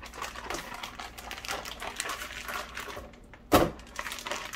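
Plastic zipper storage bag being pulled open at its zip seal and handled, crinkling throughout, with one louder sharp snap about three and a half seconds in.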